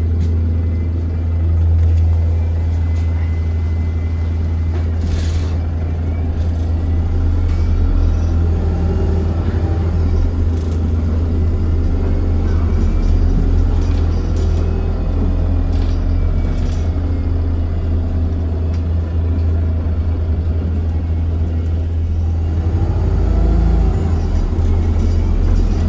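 Alexander Dennis Enviro200 MMC single-deck bus heard from inside the cabin: a steady low engine drone with road rumble as it drives, and a few brief knocks and rattles.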